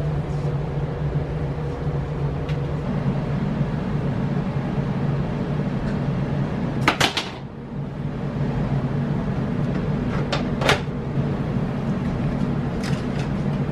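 A steady low hum with a sharp double knock about halfway through and two more short knocks a few seconds later, like a cupboard or door shutting.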